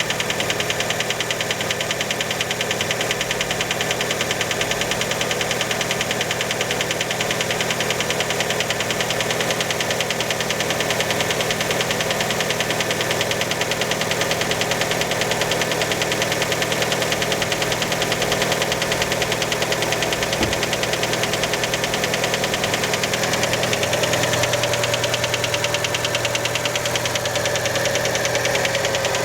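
Fiat Panda engine running cold just after start, with a steady, rapid knock from inside the engine. Many take the knock for piston skirt slap.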